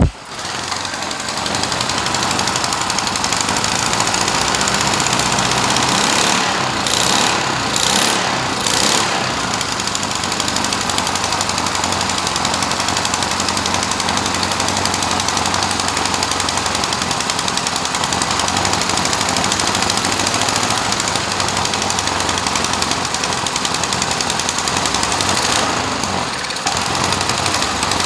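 Lifan single-cylinder Honda-clone small engine catches on the pull-start and runs loud and steady, with a few brief surges in speed about seven to nine seconds in and a short dip near the end. It is running again after being freed of debris that had jammed on top of the piston, on a carburetor that has only had a quick and dirty cleaning.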